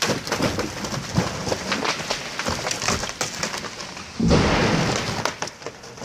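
Big fir tree coming down: many sharp cracks as limbs snap and broken branches and needles rain down through the surrounding trees. About four seconds in there is a heavier crash with a deep rumble, then it dies away.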